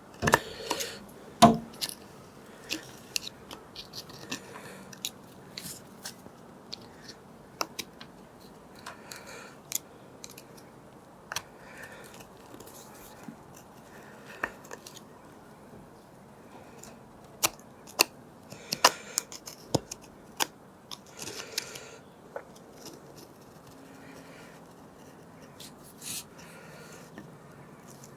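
A small hand tool scraping and picking gunk out of the circlip groove at the top of a Honda CT110 fork leg: scattered light clicks and short scratching strokes, with a small cluster of them a little past the middle.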